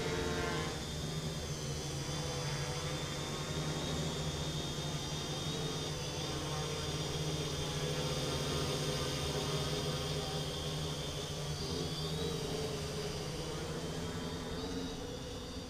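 Quadcopter's four brushless outrunner motors (1000 kV) spinning 10x4.5 props in flight: a steady high whine over a low buzz, its pitch wavering briefly about twelve seconds in.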